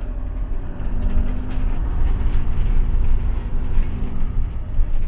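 Motorhome driving slowly through town, heard from inside the cab: a steady low engine and road rumble with a faint engine drone.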